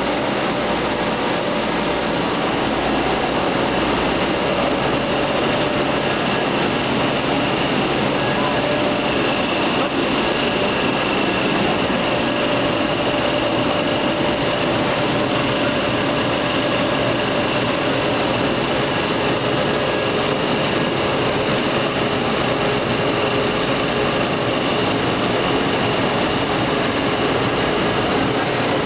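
Machinery of a PP woven-bag recycling pelletizing line running steadily: a loud, continuous industrial drone with a few steady whining tones over it.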